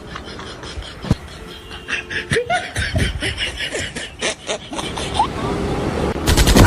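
People snickering and laughing in short bursts, then, near the end, a fast rattling burst of fake machine-gun fire starts.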